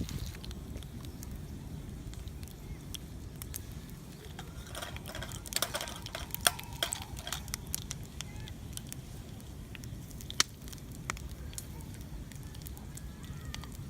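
Wood fire crackling in a mini fire pit: scattered sharp pops and snaps over a steady low rumble, with a denser run of pops about five to seven seconds in.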